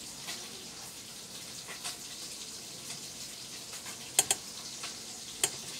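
Steady background hiss with a few sharp clicks: two close together about four seconds in, and one more near the end.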